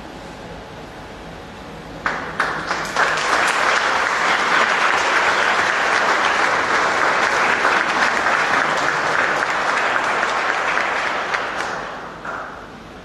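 Audience applauding: a few claps about two seconds in build quickly into steady applause, which dies away near the end.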